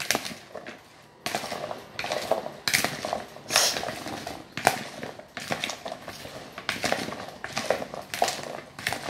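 A metal spoon tosses oil-and-vinegar-coated vegetable chunks in a plastic mixing bowl. Irregular scrapes and knocks of the spoon against the bowl, with the clatter of the vegetables, start about a second in and come roughly once a second.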